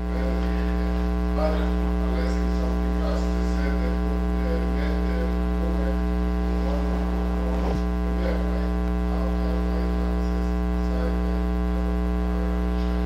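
Steady electrical mains hum, loud and even throughout. A faint off-microphone voice, an audience member asking a question, comes and goes underneath it.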